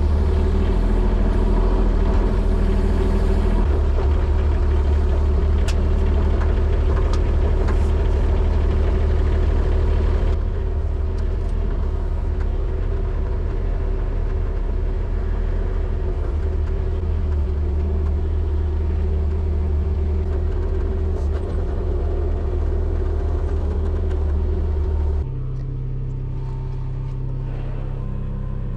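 Mini excavator engine running steadily under work. It drops a step in loudness about ten seconds in, and again near the end, where its pitch shifts slightly.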